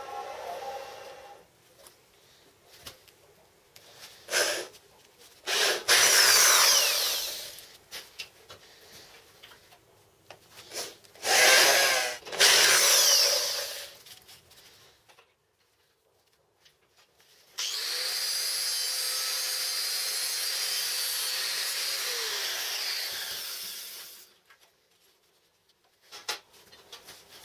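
Cordless drill with a step drill bit cutting steel in two loud, harsh bursts, about six seconds in and again about eleven seconds in. The tail of a stick-welding arc crackles at the very start. Later a power-tool motor runs steadily for about six seconds, then slows and stops.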